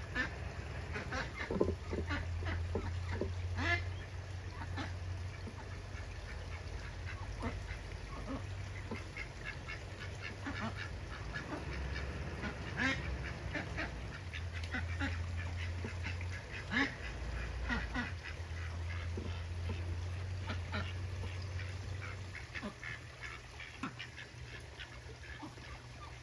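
Ducks quacking on and off in short, irregular calls, over a low steady rumble.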